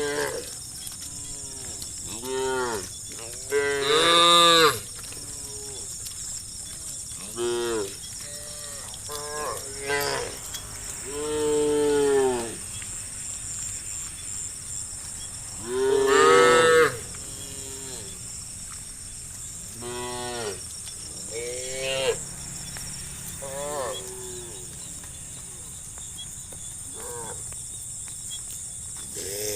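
A herd of cattle mooing, one call after another from different cows every couple of seconds, some short and some drawn out, with the loudest calls about four seconds in and again about halfway through. A steady high-pitched hiss runs underneath.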